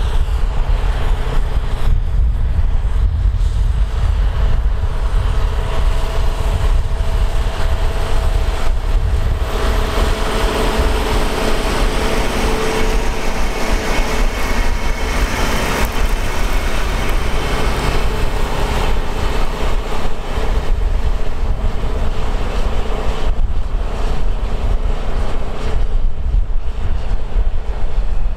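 Tractor engine running steadily as it tows a heavy disc harrow through a field. The sound is a deep rumble with a steady hum over it. It grows fuller and brighter through the middle stretch, then eases near the end.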